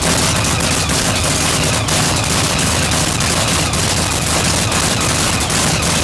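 Supercharged V8 engine of a nostalgia funny car, with a Roots blower and injector hat, running loud and steady with open exhaust.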